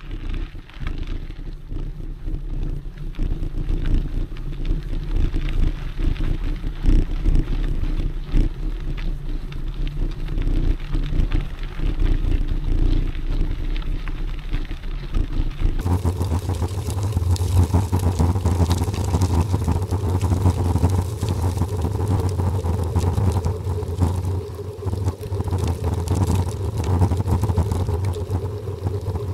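Riding noise from a mountain bike: a gusty rumble of wind on the camera microphone mixed with tyres rolling over a gravel road. About halfway the sound changes abruptly to a steadier hum with a few fixed tones.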